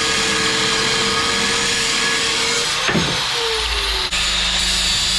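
Electric angle grinder with a sanding disc grinding rusty steel, running with a steady whine; about three seconds in the whine drops in pitch and a deeper rumble comes in.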